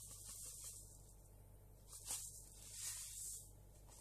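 Dry couscous grains poured from a cup into hot spiced broth in a stainless steel saucepan, making a faint hissing rustle in three short bursts.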